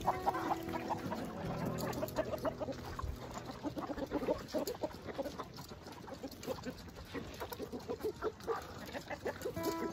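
A flock of chickens clucking continually while they peck at scattered feed, many short clucks overlapping.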